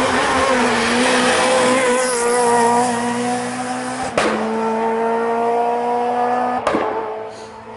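Renault Clio rally car's engine running hard as the car comes through a bend and past, with two sharp cracks at gear changes, about four seconds in and again near seven seconds, where the engine pitch jumps. The sound falls away near the end as the car drives off.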